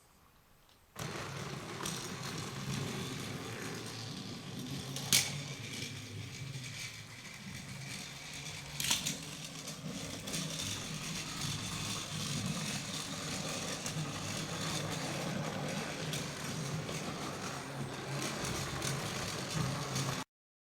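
Motorized TrackMaster Thomas toy train running on plastic track. A battery motor whirs and rattles steadily, starting about a second in, with two sharp clacks in the first half.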